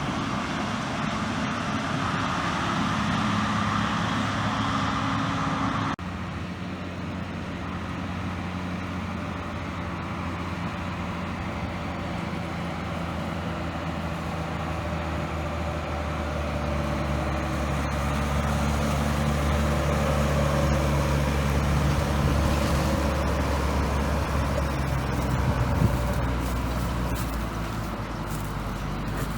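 Large farm machine's diesel engine running steadily at working speed. There is a sudden change in the sound about six seconds in, and it grows louder through the middle before easing near the end.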